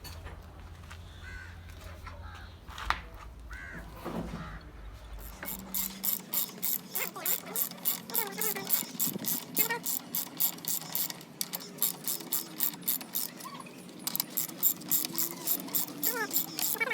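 Ratchet wrench clicking in quick even strokes, about four clicks a second, in two runs with a short pause between. A low hum underneath stops about six seconds in.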